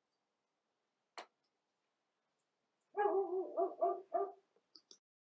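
A dog barking, a quick run of about four or five barks about three seconds in, with a single faint click a second or so earlier.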